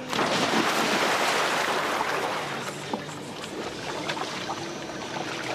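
Water splashing and rushing: a sudden loud burst of churning water, loudest over the first two seconds, settling into a steady rush of water.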